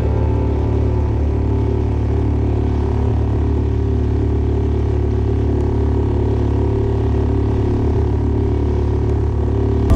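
Suzuki 2.5 hp four-stroke outboard running steadily at about half throttle, driving a kayak along at a little over five knots.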